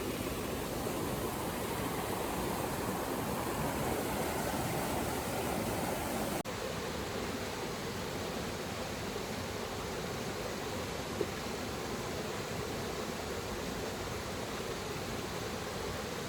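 Steady rushing of water with no distinct events, cut abruptly about six seconds in to another stretch of similar rushing water.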